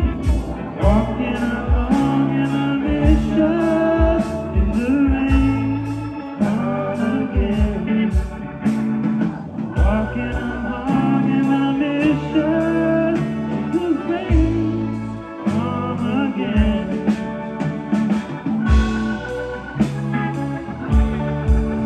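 Live band playing amplified: electric guitars, bass guitar, drums and keyboard, with a steady beat.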